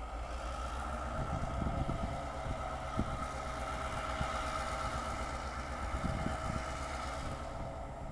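CN diesel locomotive rolling slowly on its approach, its engine a low rumble under a steady high whine, with a few clunks from the wheels and train; it grows louder after about a second and eases slightly near the end.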